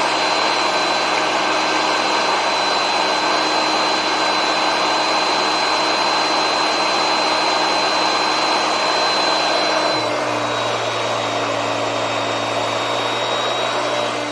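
Hoover Concept One vacuum cleaner motor running steadily with a thin high whine. About ten seconds in, the whine dips a little in pitch, the sound gets slightly quieter and a low hum comes in.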